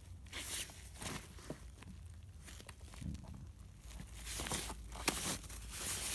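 Rustling and handling noise of a hand moving through the contents of a fabric bag's compartment, with scattered light knocks and one sharper click about five seconds in.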